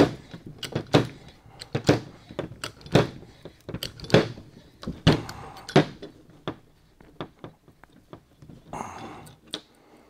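Hand pump of a VEVOR manual AC hose crimper being worked stroke by stroke, a knock with each stroke about once a second, to crimp a fitting onto barrier AC hose. The strokes grow fainter and sparser after about six seconds.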